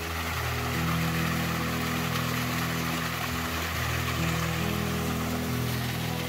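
Small forest stream cascading over rocks in a steady rush of water, under soft, slowly changing sustained music chords.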